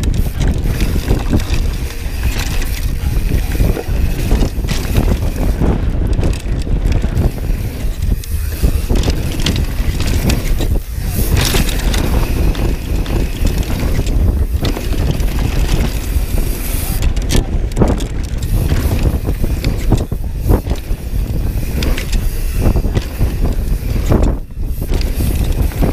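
Mountain bike riding fast down a dirt trail: wind rushing over the bike-mounted camera's microphone and tyres rolling on dry dirt, with frequent rattles and knocks as the bike hits bumps.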